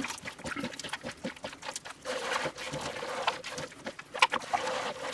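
A hand kneading soft shortcrust dough of butter, sugar and egg in a ceramic bowl: irregular squishing with many small sticky clicks as the dough is squeezed and pressed.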